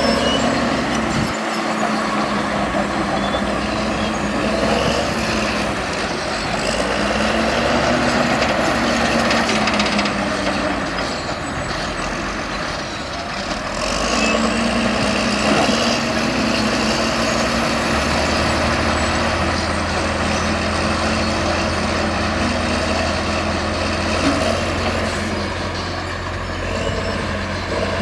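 Earth-moving machine's engine running continuously, its pitch rising and falling every few seconds as the load changes, with a faint high whine.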